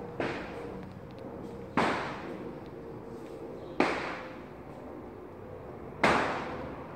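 Four sharp knocks about two seconds apart, each dying away over about half a second.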